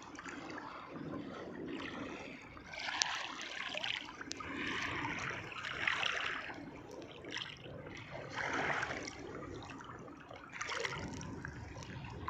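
Water splashing and trickling in irregular bursts, with a few sharp clicks.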